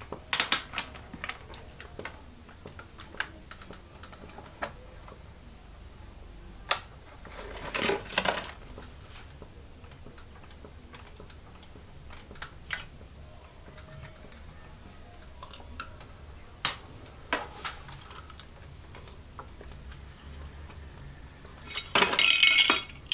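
Plastic parts of a Lego Technic garbage truck model clicking and clattering as it is worked by hand. There are scattered sharp clicks, a longer noisy burst about eight seconds in, and a louder one near the end.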